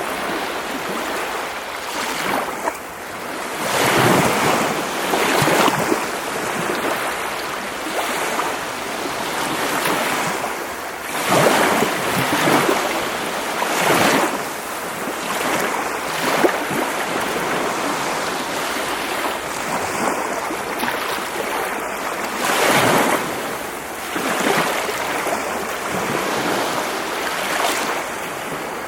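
Baltic Sea waves breaking on a shore of sand and rocks, with a continuous wash of surf and a louder break every few seconds.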